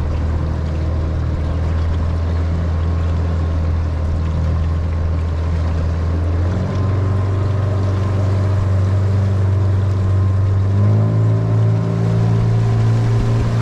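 A small boat's motor running under way, a steady drone that rises in pitch in two steps, about halfway through and again near the end, as the engine speeds up.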